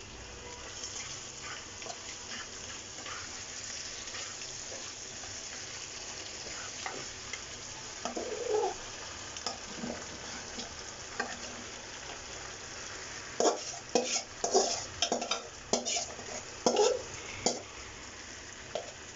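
Food sizzling steadily as it fries in a pan. About two-thirds of the way in comes a run of sharp scraping and clattering strokes, as a utensil stirs against the pan.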